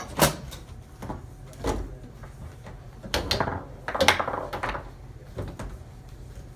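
Foosball table in play: a run of sharp, irregular knocks and clacks as the ball and the rods strike the table, a few of them bunched together about three to four and a half seconds in.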